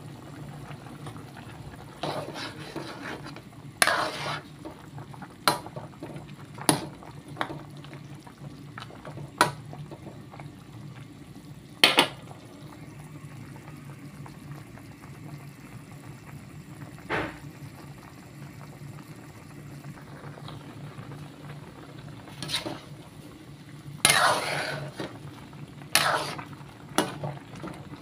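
A pot of chicken soup at a rolling boil, with a steady low hum underneath. About ten sharp clinks and knocks of a metal ladle against the aluminium pot are scattered throughout, a few of them ringing briefly.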